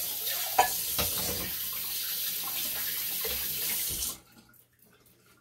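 Kitchen faucet running into a sink as an empty tin can is rinsed under it, with a couple of knocks early on. The tap is shut off about four seconds in and the water stops suddenly.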